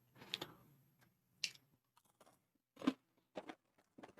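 Someone chewing crunchy corn nacho chips: a handful of short, separate crunches, faint and close to the mouth.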